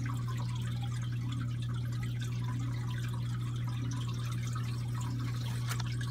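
Home aquarium running: water trickling and dripping over a steady low pump hum.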